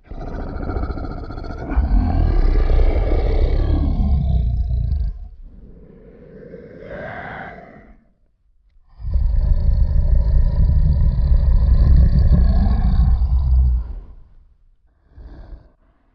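Big-cat-style roar sound effects: two long, loud, growling roars of about five seconds each, with a fainter, shorter call that rises in pitch between them and a brief faint sound near the end.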